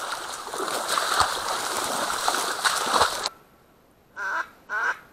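Dense rustling and brushing through reeds with a few knocks, cutting off abruptly about three seconds in. After a moment of quiet, a duck quacks three times, about half a second apart.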